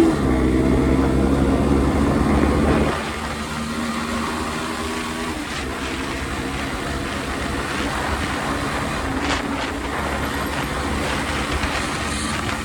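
Bajaj Pulsar NS125's single-cylinder engine revved and held high for about three seconds, then dropping back to a lower, steadier run near idle.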